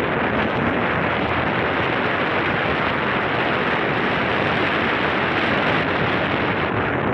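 Steady rushing noise of wind over the microphone together with motorcycle road noise, on a moving motorcycle.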